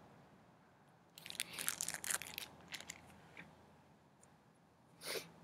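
Clear plastic sleeve crinkling as it is handled, a cluster of crackles starting about a second in and lasting a second or so, then a short sniff near the end from a runny nose.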